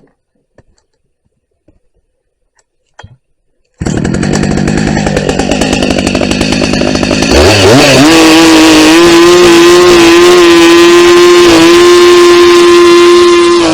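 Husqvarna 380 CD two-stroke chainsaw starting up suddenly about four seconds in and running unevenly at low speed. About seven seconds in it revs up, holds a high steady pitch, then drops back near the end.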